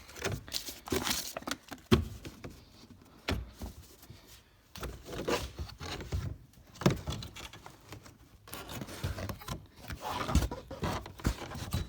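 Scattered knocks, clicks and rustling from hands handling plastic car trim parts.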